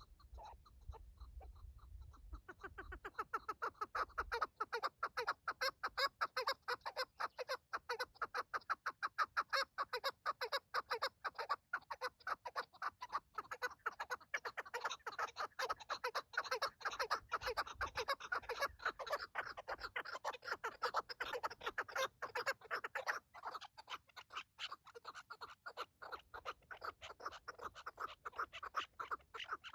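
Chukar partridge calling: a fast, unbroken run of short clucking notes, several a second, beginning about two seconds in.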